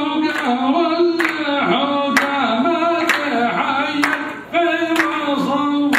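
Unaccompanied singing: a held, gliding melody line sung phrase after phrase, with sharp hand claps keeping a steady beat.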